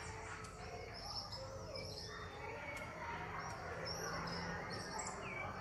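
Several birds chirping and calling, many short high chirps and brief gliding notes overlapping, over a low steady hum.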